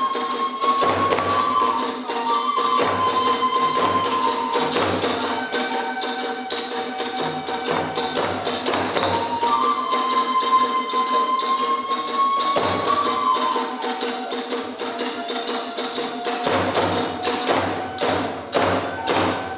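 Kagura hayashi ensemble playing: a bamboo transverse flute holds and bends a high melody over fast, steady drum beats and clashing small brass hand cymbals, with deep thumps from the large drum.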